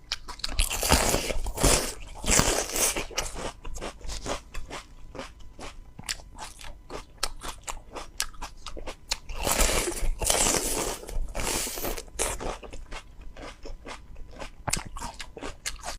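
Close-miked mouth sounds of someone biting and chewing crisp bitter melon: a quick run of crunches, with two louder stretches of heavy crunching about a second in and again about ten seconds in.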